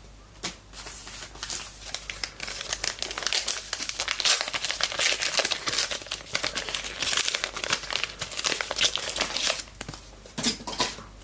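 A trading-card pack wrapper crinkling as it is torn open and handled, a dense run of crackles that dies down about two seconds before the end, followed by a few light clicks.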